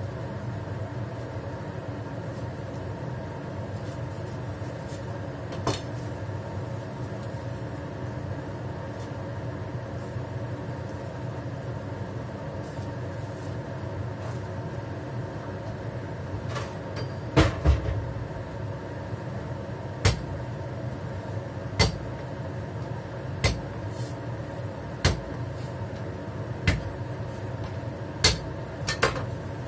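Sharp knocks on a cutting board while garlic cloves are being prepared, one every second or two through the second half, over a steady machine hum.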